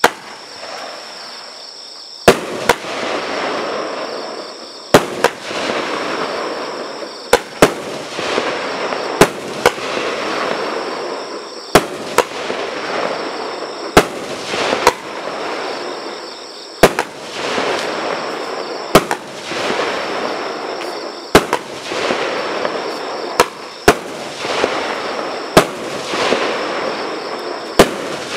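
A 16-shot firework cake firing red, green and coco glitter star shots: a sharp crack about every two to two and a half seconds, often doubled as a launch and its burst. Between the shots there is a steady hiss from the burning glitter stars.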